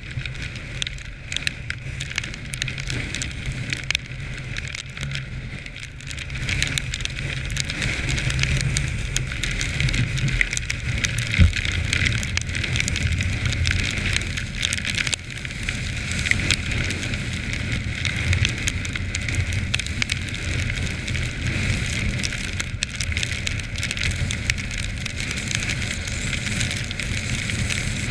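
Quad bike (ATV) engine running under way across snow, with a steady crackling hiss over it. The engine gets louder about six to eight seconds in and stays up.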